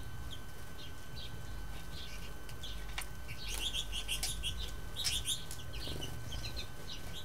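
American goldfinches twittering: a string of short, high chirps, busiest about halfway through.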